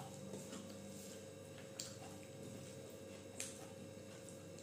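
Faint, sharp clicks of eating rice and curry by hand from a steel plate, a few single ticks spaced a second or more apart, over a faint steady hum.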